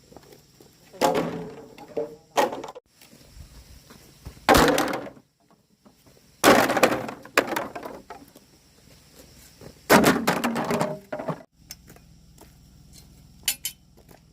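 A series of loud cracking, crashing noises in five or six separate bursts, each lasting up to about a second, with quieter gaps and small clicks between them.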